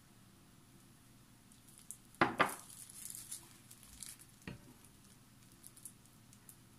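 A metal ladle clinking against a glass mixing bowl: two knocks close together about two seconds in and a lighter one about four and a half seconds in. Between them, the liquid chocolate pudding mixture sloshes and drips as it is ladled.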